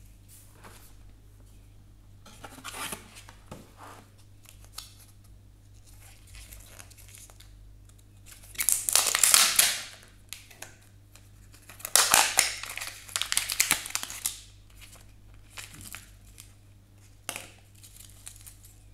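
Kinder Joy egg's plastic-and-foil packaging crinkling and tearing as it is peeled open by hand, loudest in two stretches near the middle. Lighter rustling and small ticks of handling come before and after.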